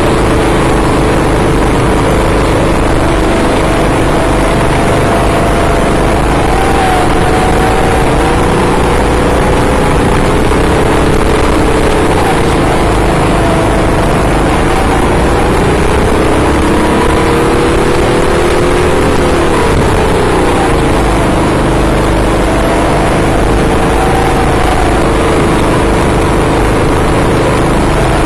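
Several 6.5 hp kart engines running at speed together, their pitches rising and falling as the karts accelerate and lift off, with one engine climbing and then dropping sharply about twenty seconds in.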